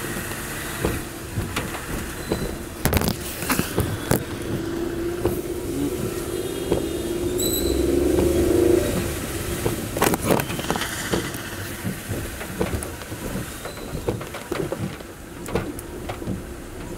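Car driving in monsoon rain: steady road noise with scattered knocks and clicks, and an engine note that rises and swells about halfway through. A short high beep sounds just before that swell peaks.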